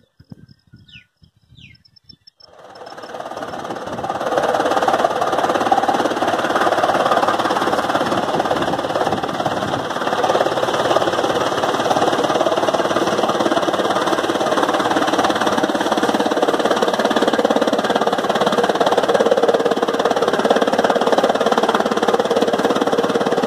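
A tractor-driven chaff cutter running under load, chopping dry crop stalks into fodder, with the tractor engine driving it. It is a loud, steady, dense mechanical din that swells in about three seconds in, after a few faint bird chirps.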